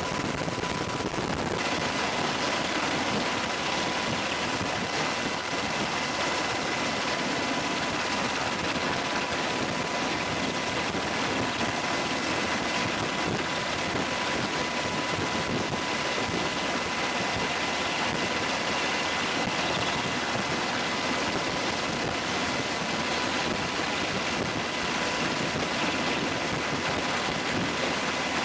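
AH-64 Apache attack helicopter's engines and rotor running steadily, a constant noise with a thin, steady high whine over it.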